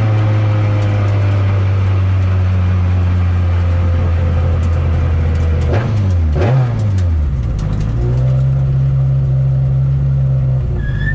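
Citroën Saxo F2000/13 rally car's four-cylinder engine heard from inside the cabin, the revs easing slowly down as the car slows. About six seconds in the revs dip sharply and rise again, then the engine runs steady at low revs. Light ticks and clicks come through around the middle.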